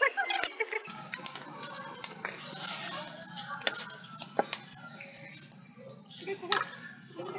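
Wood fire crackling under a steel cooking pot, irregular sharp snaps and pops, with faint voices in the background.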